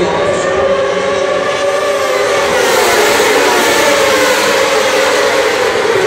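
A pack of Supersport racing motorcycles going by on the straight at full throttle. Many engines sound at once, their pitches rising and falling against each other, and the sound grows louder about two and a half seconds in as the leading bikes pass.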